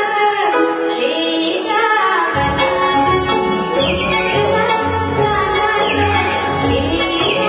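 A girl singing a melody with instrumental accompaniment; about two and a half seconds in, bass and percussion join and the music fills out.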